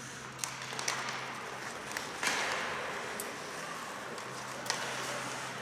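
Ice hockey play on the rink: skates scraping the ice with sharp clicks of sticks and puck, and a louder scraping hiss about two seconds in.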